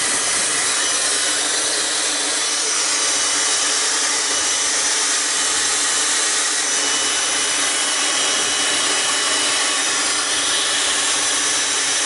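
Dyson Supersonic hair dryer running steadily on medium fan and medium heat, blowing onto wet hair: an even rush of air with a thin, steady high-pitched whine over it.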